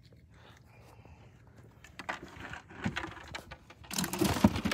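Scattered light knocks and rustling, building into a louder clatter of knocks and rustle near the end.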